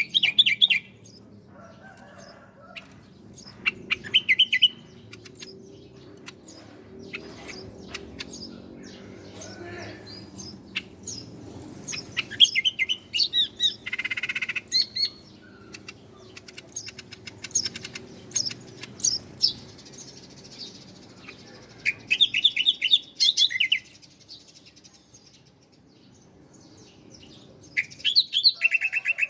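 Bar-winged prinia (ciblek) singing: short bursts of fast, high chirping trills every few seconds, with scattered single chirps between them and a faint low hum underneath.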